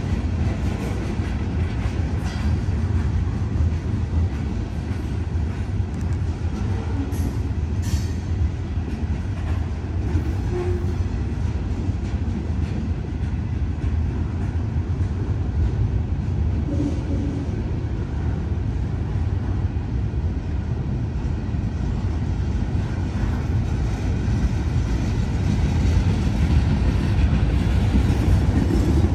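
Long CSX freight train rolling past: a steady low rumble of wheels on rail, with an occasional click.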